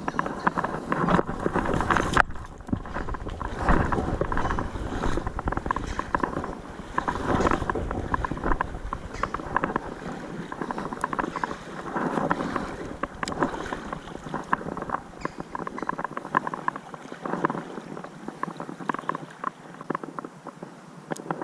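Water sloshing and splashing in surges every second or few, with small clicks mixed in.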